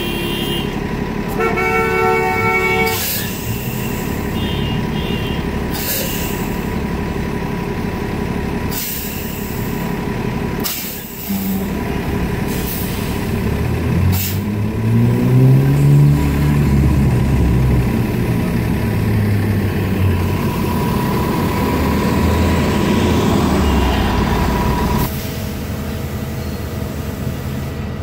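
New Flyer Xcelsior XN40 CNG city bus idling at the curb: a brief electronic beeping near the start, then several sharp air hisses. About halfway through, the engine revs up, rising in pitch as the bus pulls away, then falls off as it moves out of range.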